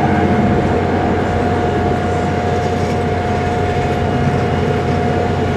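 Steady drone of a North American B-25 Mitchell's two Wright R-2600 fourteen-cylinder radial engines in flight overhead, with a single steady tone held over the engine noise.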